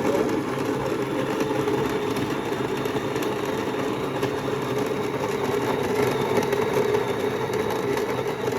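Electric espresso grinder running steadily, grinding coffee beans on a fine setting.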